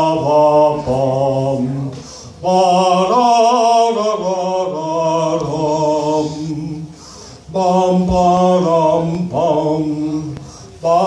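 A man's voice singing long, held wordless notes into a handheld microphone, in three long phrases with short breaks between them.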